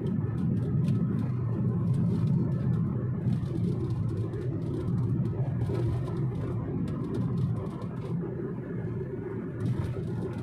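Vehicle running with a steady low rumble of engine and road noise.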